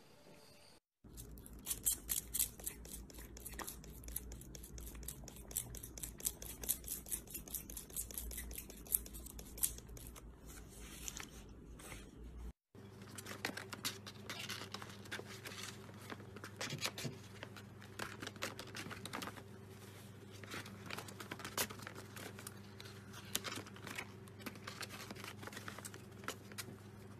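Scratchy rustling with many sharp clicks over a low rumble, then, after a brief cut to silence about twelve seconds in, crumpled brown paper crinkling and rustling as kittens tumble and play in a paper-lined box: a dense run of small crackles over a faint steady hum.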